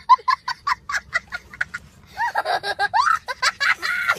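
A young child laughing hard: a rapid run of short, high-pitched bursts, then longer squealing laughs that rise and fall.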